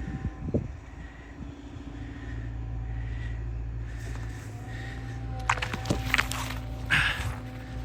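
Caterpillar excavator's diesel engine running steadily, its hum growing louder about a second and a half in. A few sharp knocks and clanks come between about five and a half and seven seconds in.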